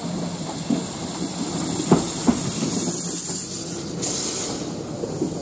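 Steam locomotive hissing steam, swelling about a second and a half in and surging again briefly about four seconds in. A few sharp clicks sound underneath.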